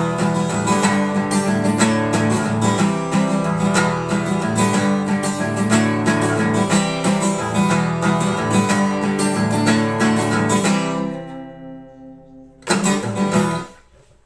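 Steel-string acoustic guitar strummed in steady chords, a chiming sound that the player says is a little like a twelve-string. The strumming stops about eleven seconds in and the chord rings out, then one last strummed chord sounds and fades away near the end.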